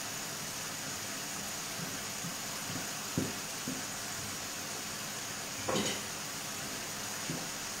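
Steady hiss of spaghetti simmering in sauce in a frying pan on a gas hob, with a few light knocks and a sharper clack about six seconds in.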